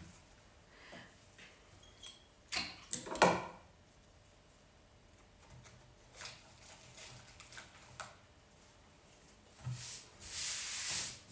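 Cut flower stems and florist's materials being handled on a work table: a few sharp clicks and snaps between about two and a half and three and a half seconds in, the loudest near three seconds, then a rustle lasting about a second near the end.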